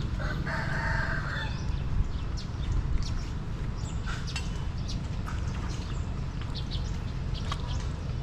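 A rooster crowing once, about half a second in, lasting about a second, over a steady low rumble with scattered short ticks.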